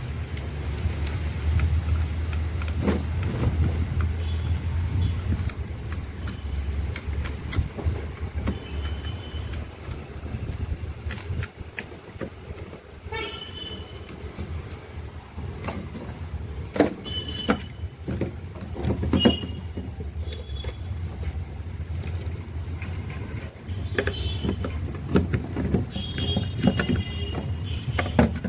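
Motor vehicle noise: a steady low engine hum with scattered knocks and clicks and a few short high toots.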